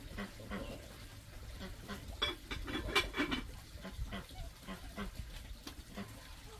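Farm animals calling repeatedly, with scattered light knocks; the sounds come thickest and loudest about two to three seconds in.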